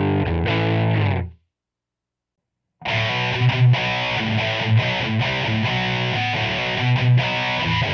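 Electric guitar played through a Line 6 POD 2.0 amp-modelling preset and recorded direct, with no room sound. It stops about a second in, leaving dead silence. About three seconds in it starts again with a different, brighter tone.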